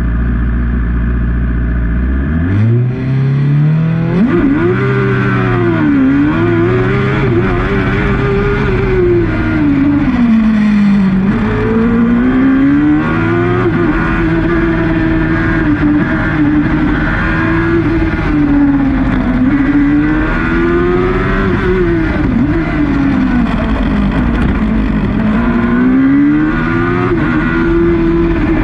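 Suzuki GSX-R inline-four motorcycle engine in a Jedi single-seater racing car, heard from onboard. It holds steady for about two seconds, then the revs climb quickly at the launch, and the note rises and falls again and again as the car is driven hard up the hill.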